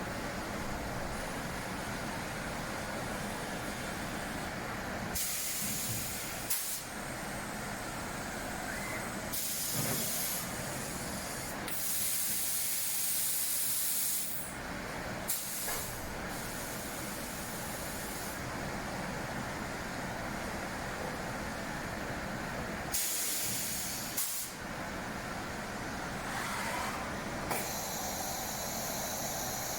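SAOMAD Woodpecker Just 3500 CNC machining centre for window and door parts running, with a steady mechanical hum and several sudden bursts of compressed-air hiss from its pneumatics, the longest lasting about two seconds.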